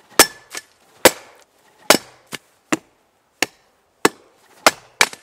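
Folding survival shovel thrown against a tree trunk, its metal blade hitting the wood in a rapid series of about nine sharp knocks.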